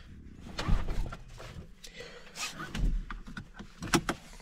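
A few short knocks and rustles from someone shifting about in a parked car's cabin.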